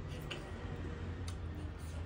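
Close-up eating sounds: soft wet mouth clicks and smacks as a mouthful of dhido is taken by hand and chewed. Under them runs a steady low hum.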